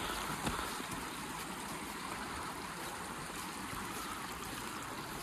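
A stream running full, a steady rush of water.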